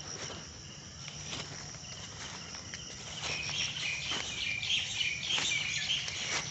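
Footsteps on the forest floor, a step about every second, over a steady high drone of insects; chirping calls come in about halfway through.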